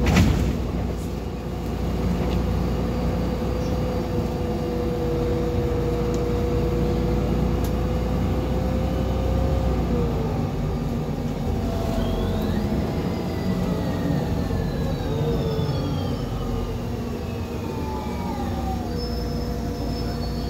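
Solaris Urbino 15 III city bus under way, heard from inside: a low engine rumble with a steady whine from the Voith automatic gearbox, which drops away a little before halfway. A little past halfway a high whine sets in and slides steadily down in pitch: the retarder braking the bus as it slows. A sharp knock right at the start.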